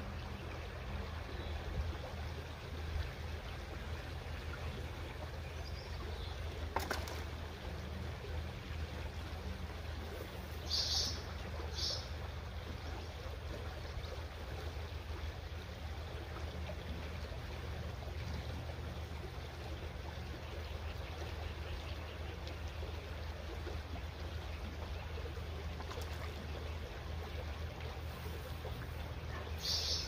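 Small rocky creek running, a steady trickling wash over a low steady rumble. A faint click comes about seven seconds in, and two brief high sounds near eleven and twelve seconds.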